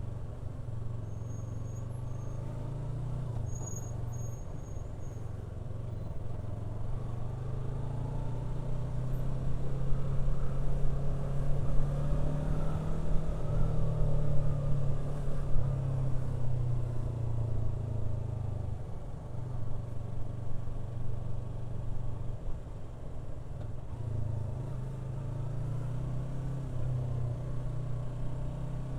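Yamaha R3's parallel-twin engine running on the move. It grows louder and higher in pitch as it accelerates in the middle, then eases back to a steady cruise.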